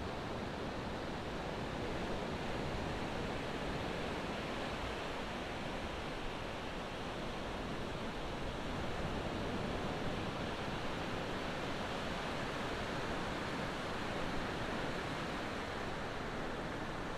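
Ocean surf breaking and washing onto the beach: a steady rushing wash that swells a little in loudness now and then.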